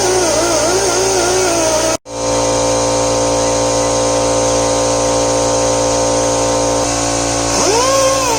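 Pneumatic die grinder spinning a wire brush wheel against rusted steel plate. Its whine wavers and dips as the brush bears on the metal. It cuts out abruptly for a moment about two seconds in, runs steadily, then spins up quickly near the end.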